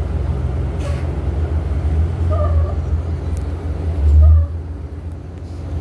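Buses idling with a steady low rumble that swells about four seconds in, with three short wavering high-pitched calls over it.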